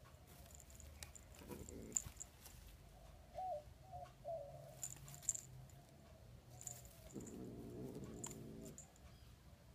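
Faint light clicks and scratches as a cat paws at a woven basket. There are a few short wavering chirps about three and a half seconds in, and a low hum from about seven to nine seconds in.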